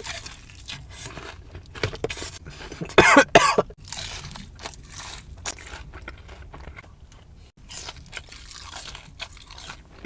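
Close-up crunching and chewing as a person bites into crispy fried hot chicken, in a run of short crackly crunches. About three seconds in comes a short, loud cough.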